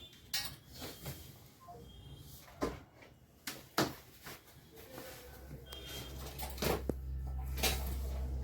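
Scattered knocks and clicks of objects being handled and set down in a small room, with a low steady hum coming in about halfway and growing louder.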